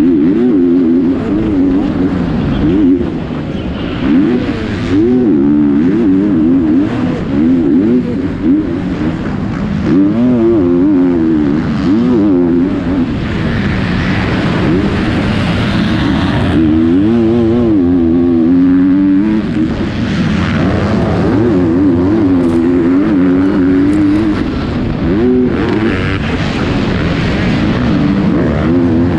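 Onboard sound of a 250cc four-stroke motocross bike racing: the engine revs up and down over and over as it accelerates, shifts and backs off, with other bikes running close by.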